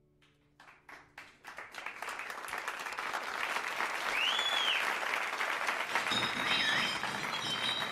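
Small club audience applauding: a few scattered claps that build within a couple of seconds into full, steady applause, with a couple of whistles from the crowd partway through.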